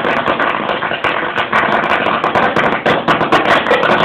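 Firecracker going off in a rapid, continuous crackle of many small bangs and pops.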